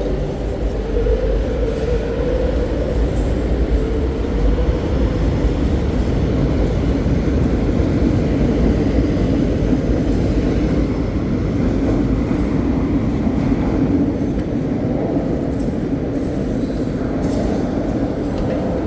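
Madrid Metro train running, heard from inside the car: a steady, loud rumble of wheels and motors. A humming tone runs through it and drops in pitch partway through.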